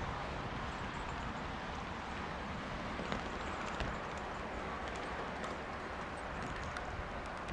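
Steady outdoor background noise, an even hiss with a low rumble, with a few faint clicks about three to four seconds in.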